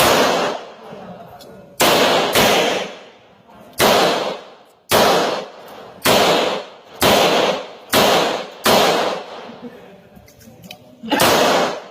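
A 9mm Glock pistol firing about a dozen shots at an uneven pace, some in quick pairs and some a second or two apart, each shot ringing out with an echo.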